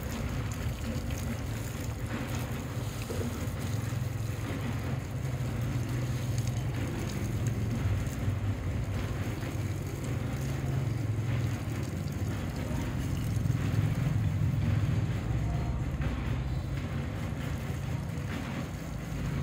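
Water from a hose pouring and splashing onto a wet round slab, over a steady low rumble.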